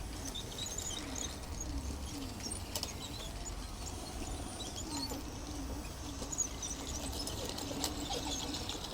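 Small electric drive of a 3D-printed RC bulldozer running its tracks, a steady mechanical whirr that wavers in a repeating rhythm, with birds chirping in the background.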